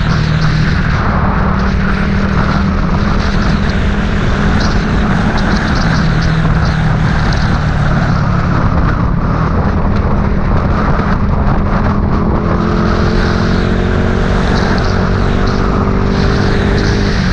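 A vehicle engine running steadily on the move, under constant road and wind noise. A second faint engine note appears near the end.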